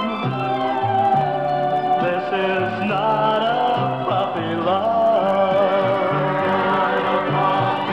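Male pop singer singing a slow ballad line over a band, with long held notes and a bass line stepping underneath.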